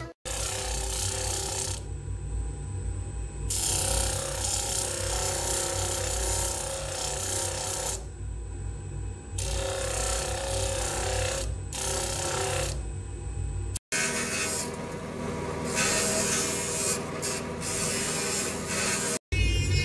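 A lapidary grinding wheel runs with a steady motor hum while a piece of amber is pressed against it, giving a gritty grinding that stops and starts as the stone is lifted off and pressed back on. The sound breaks off abruptly twice.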